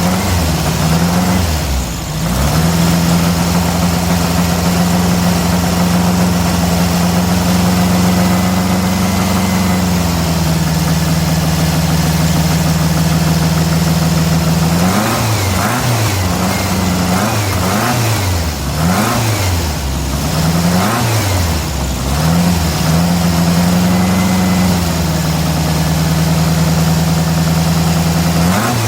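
Air-cooled VW Beetle flat-four engine running on its newly installed CB Performance Magnaspark II electronic distributor. It is held at a fast, steady speed, then blipped up and down several times in quick succession about halfway through. It is then held up again and drops back at the very end.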